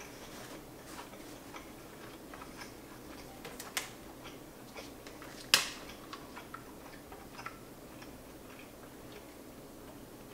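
Faint scattered mouth clicks and lip smacks from chewing with the mouth closed, then a single sharp plastic crack about five and a half seconds in as a disposable plastic water bottle is handled and its cap twisted open.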